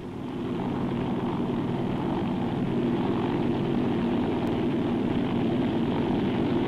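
Bell 47 helicopter in flight: its piston engine and rotor make a steady, fast-pulsing hum that grows a little louder about half a second in and then holds even.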